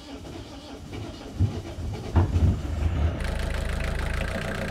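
Volvo Penta D2-40F marine diesel cranking on its starter and firing unevenly, then catching about three seconds in and settling into a steady idle. It is the engine's first start after four years laid up, with one injector slightly loosened to bleed the last air out of the fuel system.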